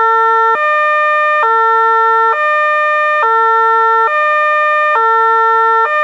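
Two-tone hi-lo fire engine siren switching back and forth between a lower and a higher note, each held just under a second.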